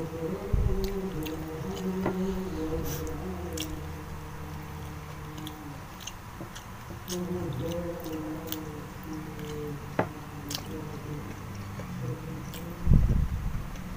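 Close-up mouth sounds of a person chewing fried catfish and rice: small wet clicks and smacks scattered throughout, with a heavier low thump near the end, over soft background music.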